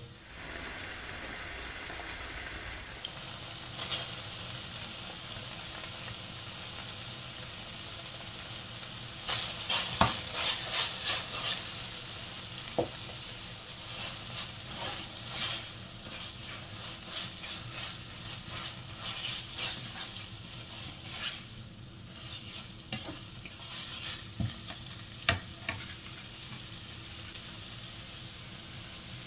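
Onion, ginger-garlic paste and shredded chicken sizzling in oil in a nonstick frying pan, with a spoon stirring and scraping against the pan. The stirring clatters in quick runs from about a third of the way in, with a few sharper knocks.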